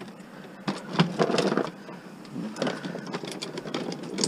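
Rapid clattering and knocking of metal scrap being handled, in two bursts, the first louder, with lighter knocks in between.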